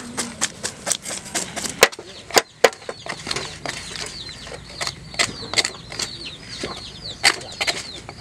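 Sharp clicks and scrapes of spoons scraping the scales off a large fish, the loudest strokes about two to three seconds in. From about three seconds in, a bird chirps over and over in short falling notes.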